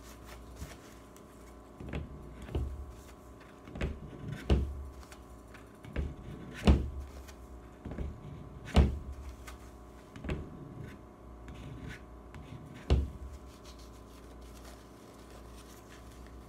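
Scattered light knocks, taps and scrapes as a spatula wrapped in paper towel is wiped across a rifle lower receiver to take excess nail polish off the engraved lettering, with paper towel being handled. A faint steady hum runs underneath.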